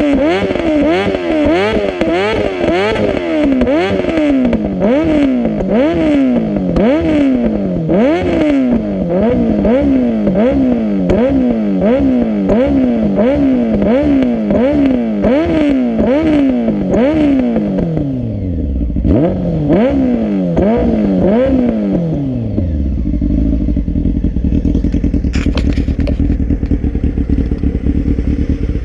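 Honda CBR600 F3's inline-four engine revved in quick repeated blips, with sharp exhaust pops and crackles as the revs fall back: backfiring in the exhaust. After about 18 seconds the blips slow and the revs drop away, and the engine settles into a steady idle.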